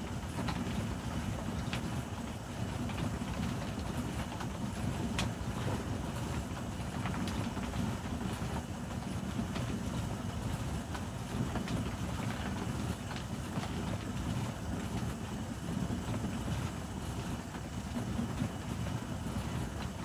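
Homemade plastic-barrel trommel sieve turning on its rollers, a steady low rumble, with leaf mould tumbling inside and scattered faint clicks of falling lumps.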